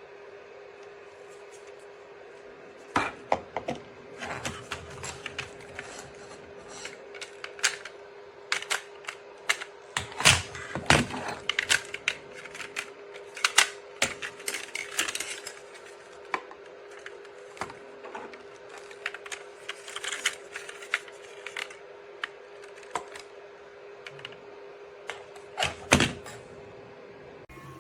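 Irregular clicks and knocks of hard plastic as an RC shark toy is handled and its battery compartment cover twisted, which refuses to open. A steady hum runs underneath.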